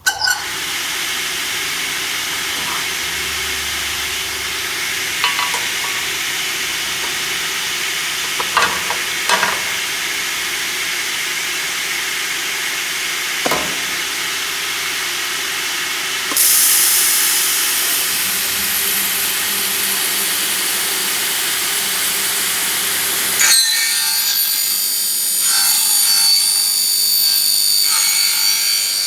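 Emmegi 350P mitre saw running, a steady loud hiss from the spinning blade and motor. It turns brighter and louder about halfway through. About three-quarters of the way in it changes to a thinner sound with high whining, ringing tones.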